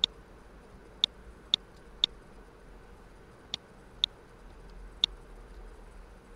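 Computer mouse button clicking: seven sharp single clicks at uneven intervals, half a second to a second and a half apart, over a faint steady hiss.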